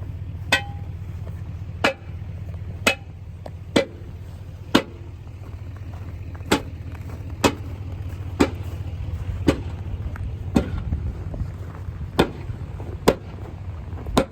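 Hammer blows on old wheel rims frozen to the ground, about a dozen sharp strikes roughly once a second, some with a short metallic ring, to break them free of the ice. A steady low hum runs underneath.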